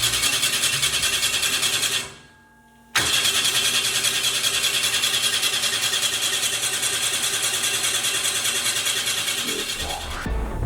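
A motor running with a fast, even pulse of about five a second. It cuts out abruptly about two seconds in, then starts again a second later and eases off near the end.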